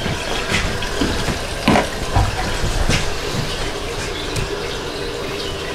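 Steady rush of running water: cooling water from the still's condenser running out into a utility sink. A few light clicks and scissor snips over it.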